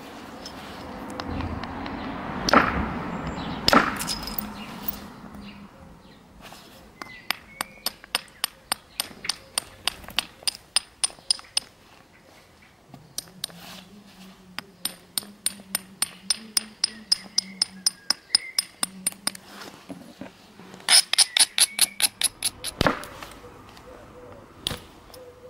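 Flint being knapped: two heavy blows on the stone early on, then long runs of light, ringing taps at about three or four a second. Near the end come a quick flurry of louder taps and one more heavy blow.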